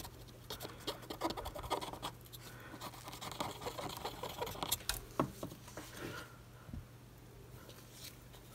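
Cotton swab scrubbed back and forth over the bare solder pads of a circuit board, cleaning them after the chip was removed: a run of irregular scratchy strokes that stops about six seconds in.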